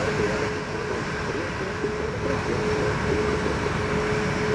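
Engines of an Airbus A320neo airliner running on the runway: a steady jet hum with one held tone through it.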